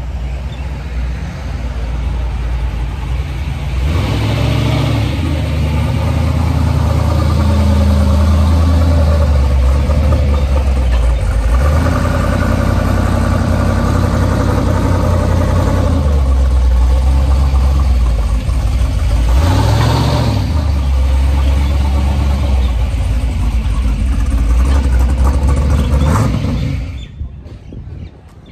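Loud car engine exhaust running with a deep note and revving up about three times, around 4, 12 and 20 seconds in. The sound stops abruptly near the end.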